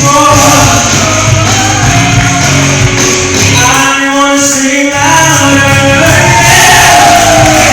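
Live gospel music: a man singing lead, holding and bending long sung notes over band accompaniment with a continuous low bass.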